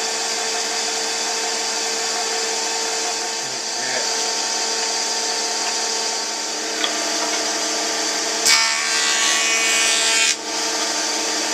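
Woodworking power tool running at a steady pitch. For about two seconds, starting some eight and a half seconds in, it cuts into the hardwood with a louder hissing sound that stops abruptly. This is the groove being cut for the jewelry box's bottom.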